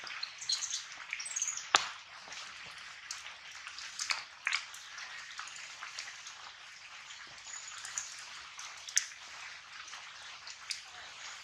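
Plastic snack wrapper crinkling and clicking in short, scattered bursts as it is handled, with a few faint high chirps in the background.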